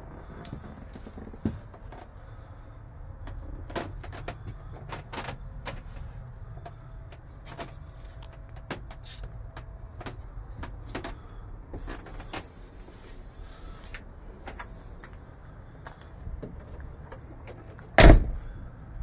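Clicks and knocks of campervan kitchen-unit fittings being handled, as the glass lid over the hob and sink is lifted and worked, over a low steady rumble. One loud thump comes near the end.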